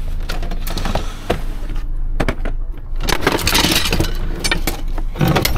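Metal tools and gear clattering and clinking as they are handled and shifted around, a run of sharp irregular clanks with a longer scraping rush about three seconds in.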